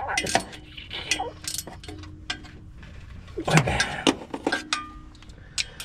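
Metal hand tools clinking and knocking against metal, with irregular sharp taps, some leaving a short metallic ring, and a louder clatter of several strikes about three and a half seconds in.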